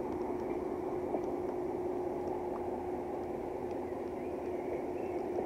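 An engine-like hum held at one steady pitch, over a broad rushing noise.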